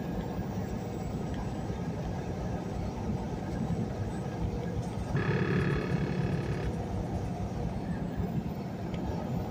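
Semi truck cab noise at highway cruising speed: a steady rumble of engine and tyres. About five seconds in, a brief steady tone sounds for about a second and a half.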